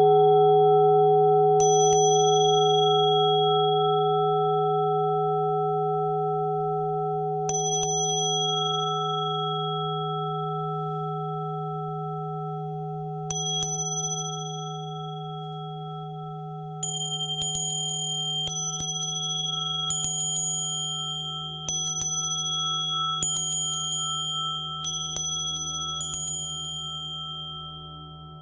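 A Tibetan singing bowl rings with a low, slowly fading hum of several steady tones. A small high-pitched bell is struck over it, about every six seconds at first. From about two-thirds of the way through, the strikes come faster, roughly every one and a half seconds, at a slightly different pitch.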